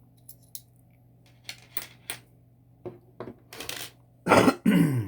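Small metal lock-picking tools being handled, with light clicks and clinks on a hard surface. Near the end there are two loud, short bursts, each falling in pitch.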